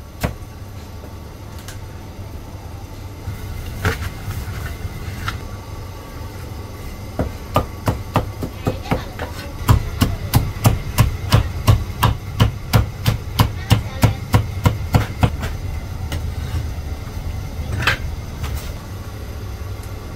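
Heavy Chinese cleaver chopping char siu (barbecued pork) on a thick round wooden chopping block. A few scattered chops come first, then a fast, even run of sharp chops, about three a second, through the middle. A steady low hum sits underneath.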